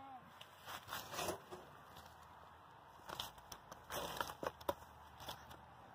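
A child's plastic toy shovel scraping and scooping at dirt, rabbit droppings and dry leaves: faint, irregular scrapes and crunches.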